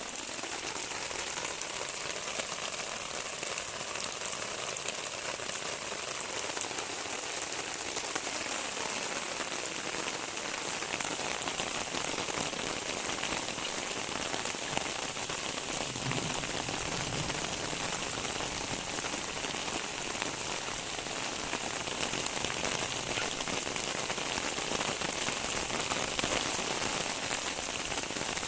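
Steady rain falling and pattering on surfaces, an even hiss dotted with small drop ticks. A brief low rumble comes in about sixteen seconds in.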